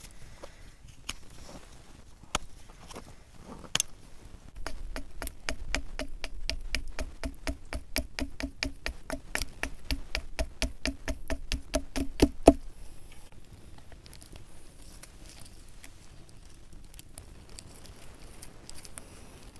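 Knife blade chopping into a wooden spork blank resting on a log: a few single sharp knocks, then a fast, even run of knocks, about four or five a second, each with a short hollow ring, that stops abruptly about halfway through. After that comes quieter scraping as the knife carves the wood.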